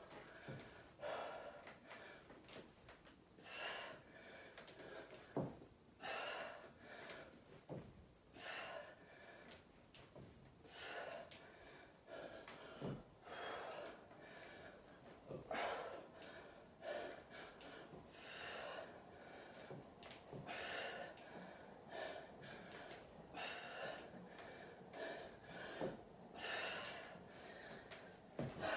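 A woman's hard, effortful breathing from exertion: loud gasping breaths in and out, repeated every second or two, with a few faint knocks.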